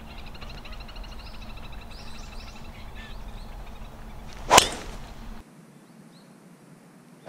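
A driver striking a golf ball off the tee: one sharp, loud crack about four and a half seconds in, with faint chirping in the background before it. Another sharp crack comes right at the very end.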